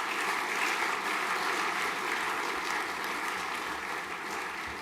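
An audience applauding with dense, steady clapping that slowly tapers off near the end.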